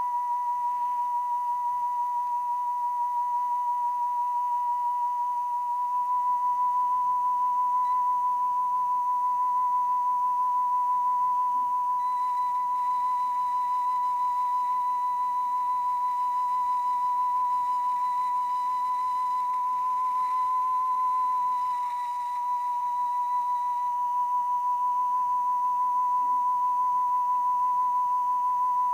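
Steady single test tone from a speed-calibration test cassette playing on a Sharp GF-305SB cassette deck, with a slight warble. The tape speed is running slightly slow and is being trimmed with the motor speed adjuster, so the pitch rises a little about twenty seconds in and settles back about two seconds later.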